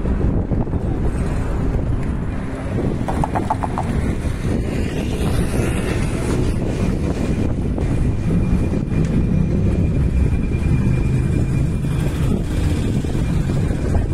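Wind rumble on the microphone of a moving bicycle, mixed with city traffic, steady throughout. A brief rapid clatter about three seconds in.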